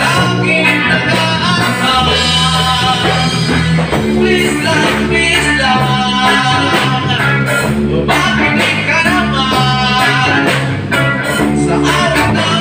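A live band playing a song: a man singing into a microphone over electric guitars through amplifiers and a drum kit, with a pulsing bass line, continuous and loud.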